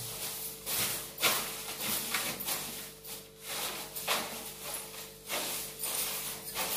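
Soft grass broom swishing across a hard floor in quick, uneven strokes, over a faint steady hum.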